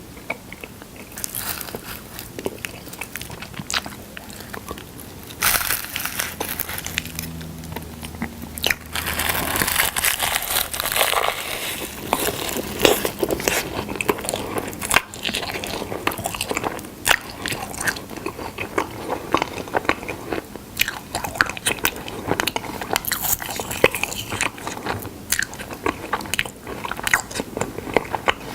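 Close-miked mouth sounds of eating honey: biting, crunching and sticky, wet chewing with many sharp clicks and crackles.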